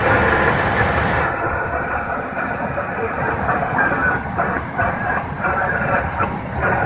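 Steady, loud rushing noise on a Boeing 777 flight deck in flight: the airflow and air-conditioning hiss of the cockpit, with a low rumble underneath.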